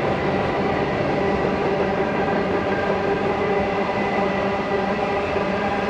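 Long train of hopper wagons rolling past, a steady rumble and clatter of wheels on rails with a continuous humming drone over it.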